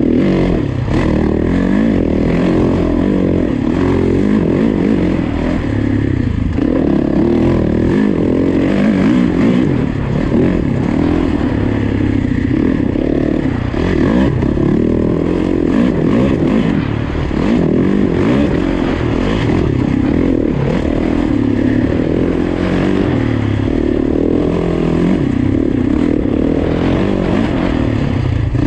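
Yamaha YZ450FX's 450 cc four-stroke single-cylinder engine running hard while the bike is ridden along a woods trail, its pitch rising and falling constantly with throttle and gear changes. Chassis and suspension clatter runs underneath.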